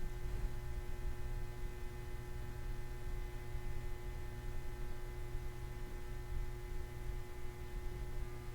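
Steady background hum with a low rumble and several faint, unchanging whining tones; nothing else happens.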